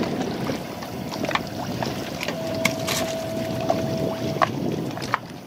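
Wind and water noise around a small boat, with scattered light clicks and knocks on deck and a faint steady tone for about two seconds in the middle.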